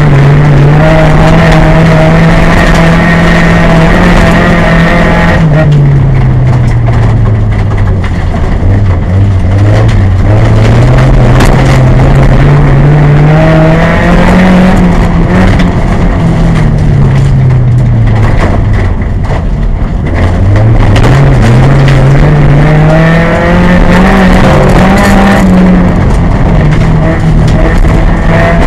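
VW Golf Mk2 autocross car's engine heard loud from inside its cabin, running hard under racing load. The engine pitch falls off twice, about five and about fifteen seconds in, and climbs back up each time.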